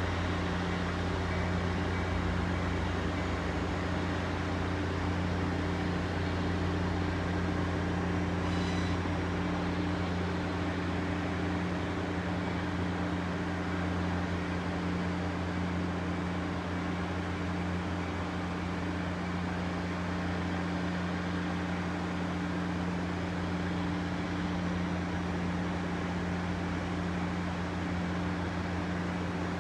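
Steady low diesel drone of a slow-moving passenger train, an unchanging hum with a rushing noise over it.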